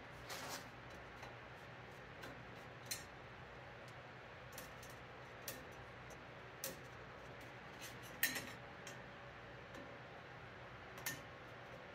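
Light metallic clicks and taps, about a dozen at irregular intervals, as a screwdriver works against a band saw's upper blade guide while it is loosened for a blade change. The sharpest tap comes about eight seconds in.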